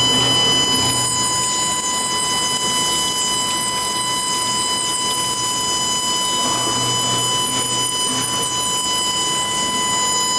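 Wedge wire screen welding machine running: a steady whine of several high tones over constant machine noise, with a low hum that swells and fades, loudest about seven seconds in.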